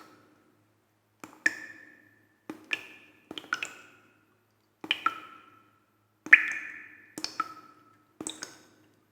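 A series of sharp clicks and taps on something hard, about seven of them, several coming in quick pairs. Each is followed by a brief ringing tone that dies away within half a second.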